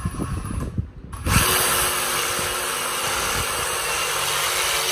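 Reciprocating saw cutting across a calf's skull: it starts a little over a second in, runs steadily and loudly, and cuts off near the end.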